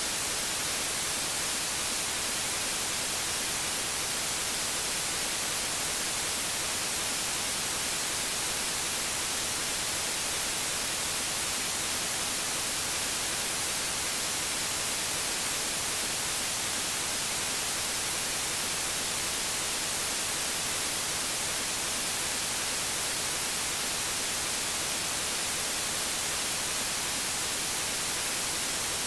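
Steady, unchanging electronic hiss, like static, with no other sound in it.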